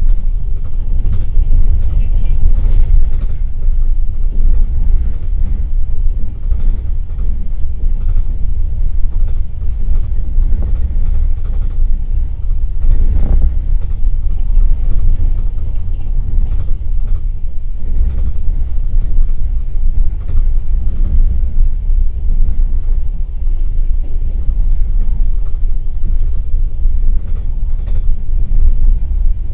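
Passenger train running at speed, heard from inside an open-plan sleeper carriage: a steady low rumble of wheels on rails with scattered creaks and clicks from the carriage. A brief louder rush comes about halfway through.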